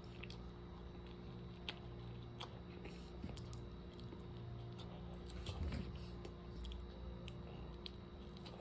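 A person chewing and biting a hummus meatball wrap close to the microphone, with scattered small mouth clicks and a louder bite about two-thirds of the way in, over a steady low hum.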